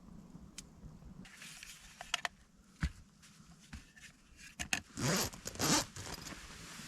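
A zipper pulled in two quick strokes about five seconds in, each stroke rising in pitch, after a few scattered small clicks and rustles.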